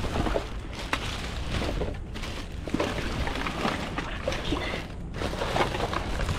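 Clear plastic garbage bags full of trash rustling and crinkling as hands pull them open and push them aside, a dense run of crackles throughout.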